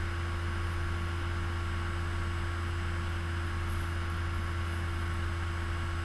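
Steady low electrical hum with a fainter higher tone and hiss, unchanging throughout: the background noise of the recording's audio line.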